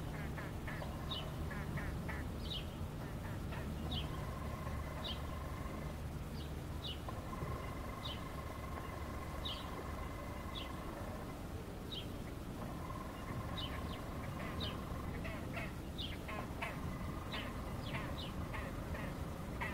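Waterfowl calling in short, sharp calls about once a second over a steady low hum of urban noise. A steady whine comes and goes in the background.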